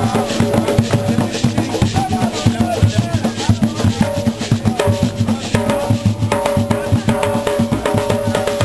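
Several djembe-style hand drums played together in a fast, dense rhythm.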